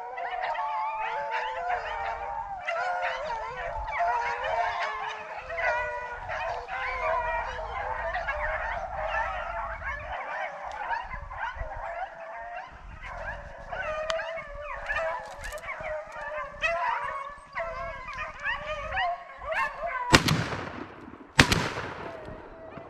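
A pack of rabbit dogs baying together on a rabbit's trail, then two shotgun shots about a second and a half apart near the end, the first the louder.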